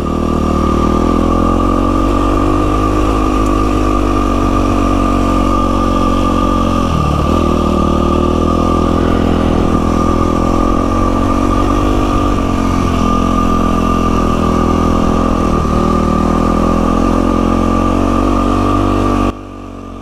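2012 Yamaha WR450F's single-cylinder four-stroke engine running at a steady, moderate throttle, with a steady high whine over it and a few brief dips in pitch as the throttle is eased. The sound drops away abruptly near the end.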